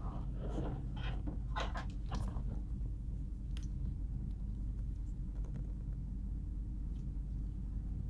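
Light clicks and rustles of small parts being handled on an opened laptop, clustered in the first couple of seconds, then a few faint ticks over a steady low hum.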